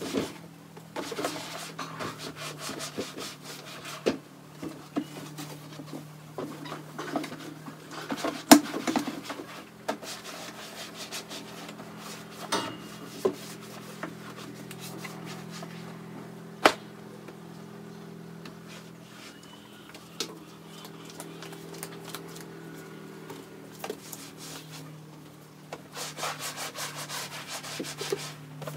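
Scrubbing: fast rubbing strokes over a hard surface in runs with short pauses. Two sharp knocks come about a third and about halfway through, over a steady low hum.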